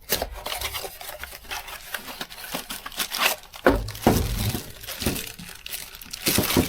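Packaging crinkling and rustling as it is handled, in irregular crackles, with a couple of louder handling bumps partway through and near the end.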